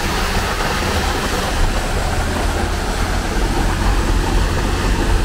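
Concrete mixer truck's diesel engine running steadily, a low rumble under a broad rushing noise, while it discharges concrete into a bored pile.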